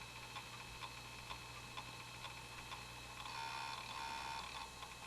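Failing Toshiba MK1011GAV laptop hard drive clicking over and over, about two clicks a second, with two short tones a little over three seconds in: the drive has failed, which the owner puts down to it being past its design life.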